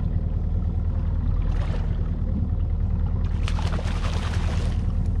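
Boat's Evinrude 115 outboard motor idling with a steady low hum, while a hooked fluke splashes at the surface about three and a half seconds in as it is reeled to the boat.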